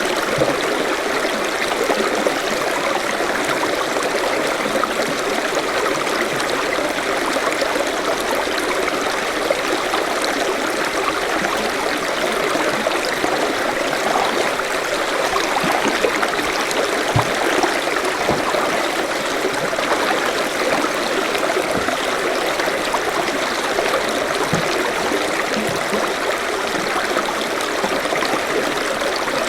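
Forest stream running steadily over stones, a continuous rushing babble with small splashes and gurgles through it.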